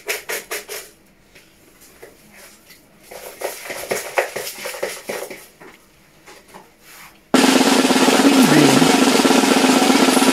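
Folded paper slips rattling in a plastic bowl, first shaken in quick even strokes, then stirred by hand. About seven seconds in, a loud drum roll starts suddenly and carries on, with a wavering tone running through it.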